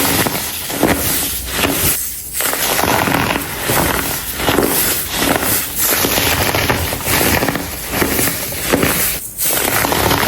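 Chunks of dried baking soda crushed and crumbled in the fingers, a dense, crunchy crackling with short pauses about two seconds in and near the end.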